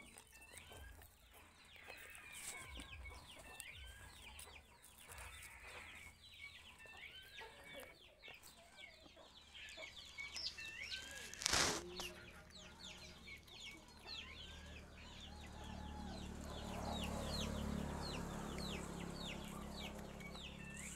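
Chickens clucking, with many short high peeps repeating throughout. A single sharp knock about halfway through, and a low rumble swells and fades in the second half.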